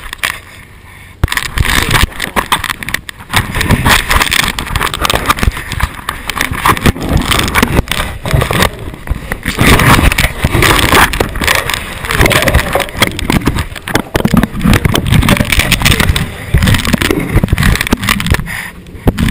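Loud, uneven rumbling and knocking from action cameras being jostled, mixed with the rush of hose water spraying, after a brief quieter moment in the first second.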